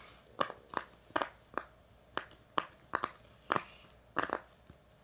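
Bubbles of a silicone octopus push-pop fidget toy being pressed through one after another: a quick run of about ten short, sharp pops, roughly two a second.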